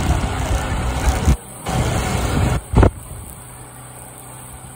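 Motorcycle riding along a street: wind buffets the microphone in heavy low gusts that cut in and out over the first three seconds, then settles to a quieter steady rush with the engine running underneath.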